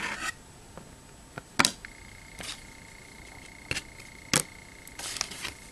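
Pieces of cut-out cardboard being handled: a few light, sharp taps and short rustles as they are picked up and moved about, with a faint steady high whine in the background from about two seconds in.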